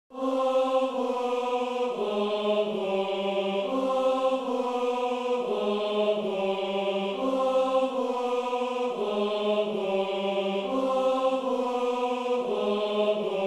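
Symphonic song intro of sustained choir-like chords, beginning out of silence and moving to a new chord every second or two, with no drums or guitars.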